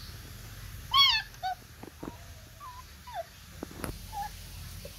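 A nursing puppy squeals once, loud and arching up and down in pitch, about a second in, then gives a shorter lower squeak and a few faint whimpers.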